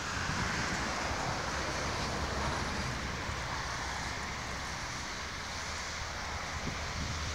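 Steady outdoor background noise: an even hiss with a low, fluctuating rumble, and no distinct events.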